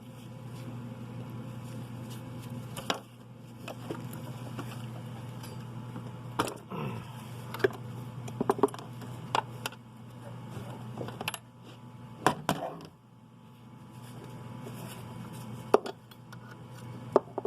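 Metal wrenches clinking against the turbo oil line fitting and nut in scattered sharp clicks as the fitting is broken loose, over a steady low hum.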